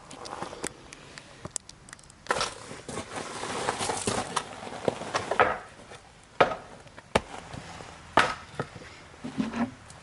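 Handling noises: a series of sharp knocks and clicks, with a stretch of rustling between about two and five and a half seconds in.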